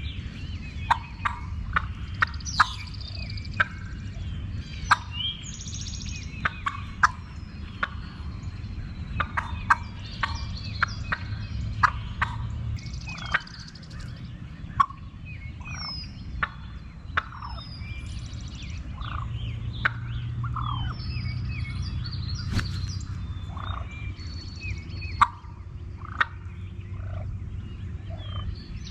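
Turkey calling, a long irregular run of short sharp clucks and yelps, with small birds chirping higher up over a steady low rumble.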